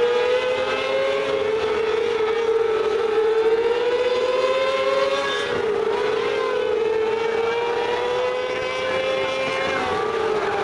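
A pack of mini sprint race cars running laps on a dirt oval, several engines overlapping at high revs. The engine pitch climbs slowly and then drops sharply, three times in a row.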